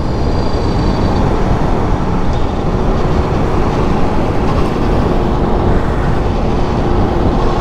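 Steady wind and road rush on the microphone of a 2022 Aprilia Tuono V4 1100 Factory at riding speed, its V4 engine on the stock exhaust barely heard beneath it.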